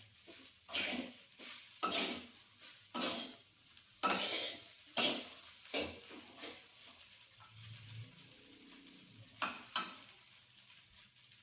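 Spatula scraping and tossing fried rice in a frying pan, about one stroke a second, over sizzling. The strokes pause about two thirds of the way in, then two more come near the end.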